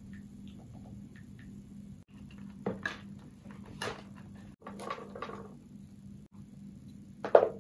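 Desk items being handled and set down: a tablet in a rugged case and pens moved around a plastic rolling cart. There are scattered light knocks, clicks and a brief rustle, with one sharper knock near the end.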